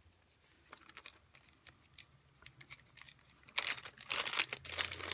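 Thin clear plastic bag crinkling as hands handle and open it: faint rustling at first, then loud, busy crinkling from about three and a half seconds in.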